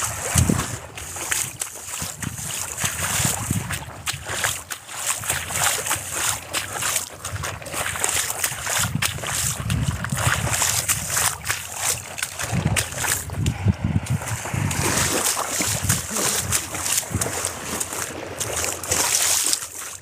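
Small waves lapping and washing onto a sandy lake shore, an uneven wash of water with an irregular low rumble underneath.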